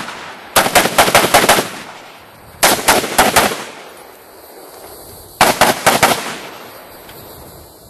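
Colt M4 carbine firing 5.56 mm rounds in three quick strings of shots, each string lasting about a second. The first comes just after the start, the second about 2.6 s in, and the last about 5.4 s in.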